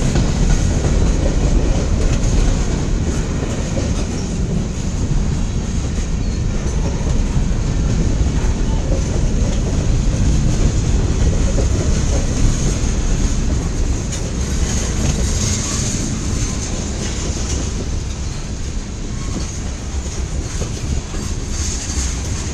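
A long mixed-freight train's cars rolling past: a steady rumble of steel wheels on rail with clicking over the joints. Over it runs a thin high-pitched ring that swells about two-thirds of the way through and again near the end.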